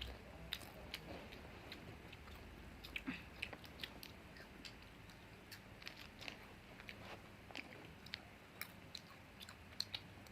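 A person chewing a snack close to the microphone, with irregular sharp crunchy clicks and wet mouth sounds several times a second.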